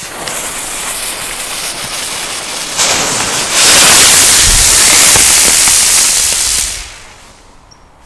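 Green Funke Rauchspur Geschwader smoke-trail flying spinner firework: the lit fuse sizzles, then about three seconds in the spinner's charge takes off with a loud, steady rushing hiss as it whirls up into the air. The hiss dies away about seven seconds in, with no bang.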